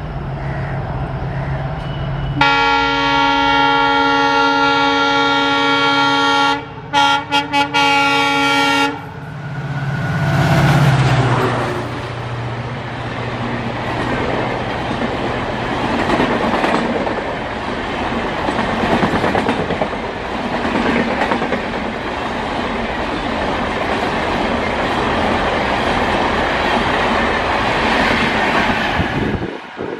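Indian Railways diesel locomotive sounding a long horn blast, which breaks into several short toots near its end. The locomotive then goes past loudest, about ten seconds in. Its train of coaches rolls by after it with a steady rush of wheel and track noise.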